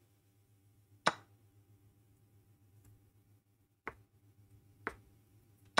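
Chess pieces being picked up and set down on a Chessnut Air electronic chessboard: a sharp click about a second in, then a few quieter clicks near the end.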